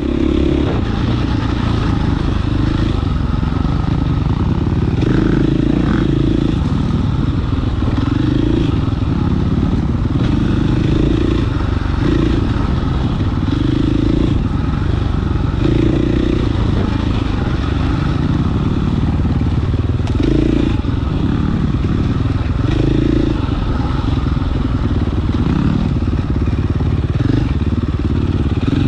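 Four-stroke single-cylinder engine of a KTM XC-F dirt bike running continuously on a trail ride, its pitch swelling and dropping every second or two as the throttle is worked.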